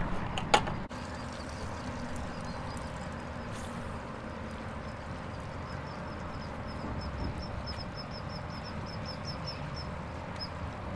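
Steady wind and open-water noise with one sharp knock about half a second in. From about halfway through comes a fast, even run of light ticks as a spinning reel is cranked in.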